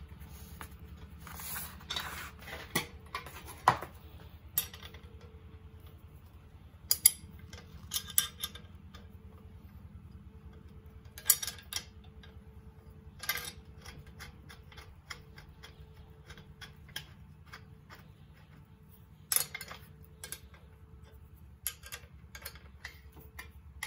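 Irregular metallic clinks and clicks as a bolt is threaded through a steel hitch-mount tube and a flat stamped wrench is fitted and turned on its head to pull the shaft tight, over a steady low hum.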